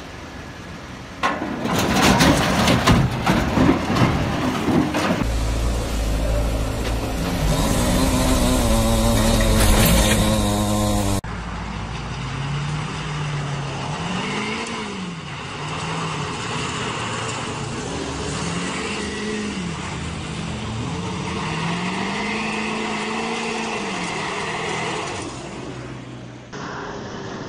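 A heavy rumbling and rushing for the first several seconds, with a truck engine rising in pitch. Then, from about eleven seconds in, a pickup truck's engine revving up and down again and again as it strains to tow a semi-truck stuck in the grass.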